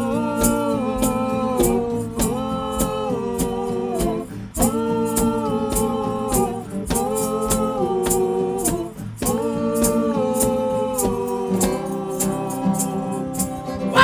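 Singing in held phrases over a strummed acoustic guitar: a children's song performed live.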